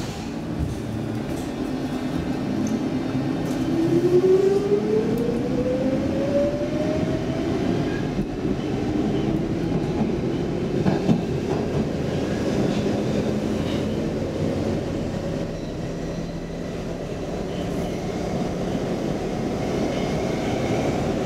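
Stockholm Metro C14 train pulling out of a station, heard from inside the car: a whine rises steadily in pitch over the first several seconds as it accelerates. It then settles into the steady rumble and wheel noise of the car running through the tunnel, with a single clunk about halfway through.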